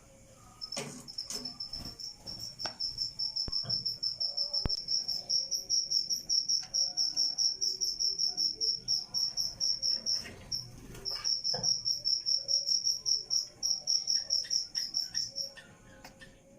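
A cricket chirping in a fast, even, high-pitched pulsed trill, with a short break about ten seconds in. A few faint knocks and clicks sound here and there.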